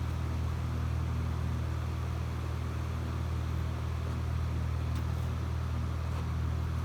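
Electric fan running: a steady low hum with an even rush of air.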